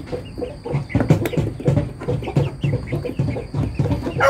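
Young chickens, about two months old, clucking and peeping in a run of short, quickly repeated calls.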